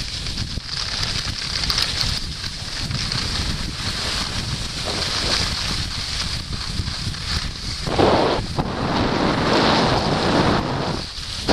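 Wind buffeting the microphone over the steady hiss of skis sliding on snow. A louder rush of noise comes in about eight seconds in.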